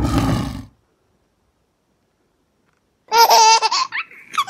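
A loud rushing noise cuts off under a second in, followed by complete silence. About three seconds in, a child's high-pitched voice starts babbling and squealing without clear words.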